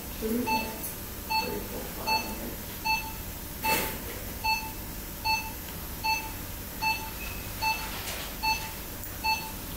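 Operating-theatre patient monitor beeping steadily, one short beep about every three-quarters of a second, in time with the patient's pulse.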